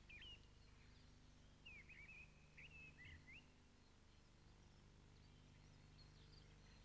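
Near silence with faint bird chirps: a brief call at the start, then a short run of quick rising and falling notes from about one and a half to three and a half seconds in, over a low steady hum and hiss.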